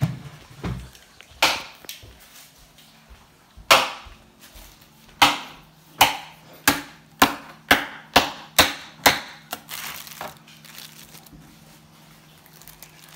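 Kitchen knife chopping lettuce on a plastic cutting board set on a wooden board: about a dozen sharp chops, spaced out at first, then about two a second in the middle.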